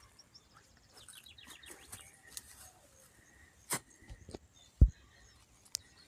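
Outdoor garden ambience: a bird gives a quick falling run of high notes in the first second and a half, then footsteps and handling knocks of a walking cameraman, with a loud low thump a little before five seconds in.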